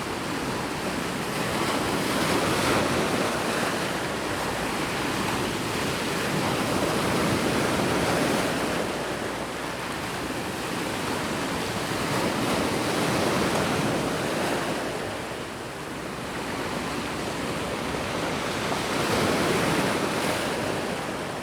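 Sea waves breaking on a beach. The surf rushes continuously and swells louder about every five to six seconds as each wave comes in.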